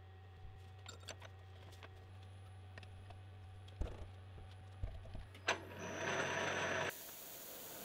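Twist drill in a CNC mill spindle cutting into a metal block: a loud harsh hiss with a high whine starts about five and a half seconds in and cuts off suddenly after about a second and a half. Before it, a low steady hum with a few light knocks.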